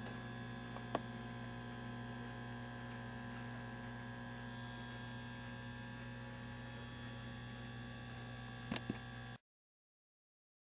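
Steady electrical mains hum with a faint click about a second in and a couple of small ticks near the end; it cuts off abruptly about nine seconds in, leaving dead silence.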